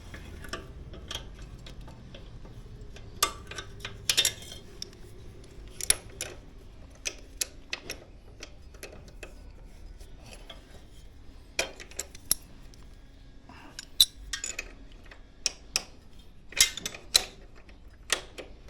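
Metal hand tools clinking and clanking on motorcycle hardware during a drive-chain adjustment: irregular sharp metallic clicks with a few louder knocks.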